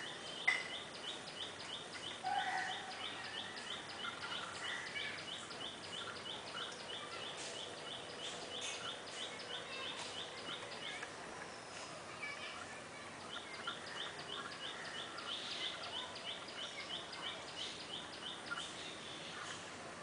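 Outdoor bird sounds: a rapid run of short, high chirps about four a second, pausing briefly past the middle and then resuming, over scattered lower bird calls. A short, louder sound comes about half a second in.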